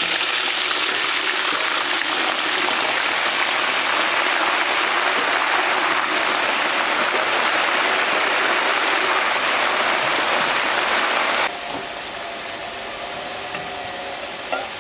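Banana slices deep-frying in hot oil in a large wok, on their second fry: a loud, steady sizzle. About eleven seconds in it drops suddenly to a much quieter sizzle.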